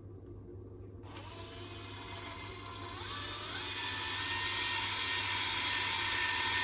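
Electric screwdriver running as it drives in a screw. Its motor whine starts about a second in, steps up in pitch twice and grows louder.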